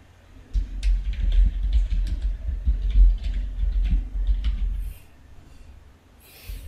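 Typing on a computer keyboard: a run of irregular key clicks with dull thumps under them, stopping about five seconds in.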